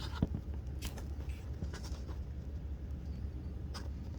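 A few faint clicks and taps from a phone being handled against a window pane, the sharpest about a quarter second in, over a steady low hum.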